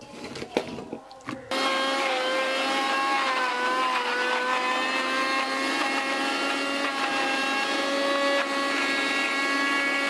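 A few knocks of pineapple pieces going into a mixer grinder jar. About a second and a half in, the electric mixer grinder's motor starts running with a steady high hum, its pitch wavering slightly as it blends.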